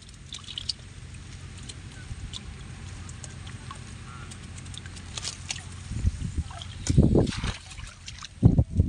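Water trickling and small clicks as a wet bamboo fish trap is emptied into a woven basket of prawns. From about six seconds in, gusts of wind buffet the microphone.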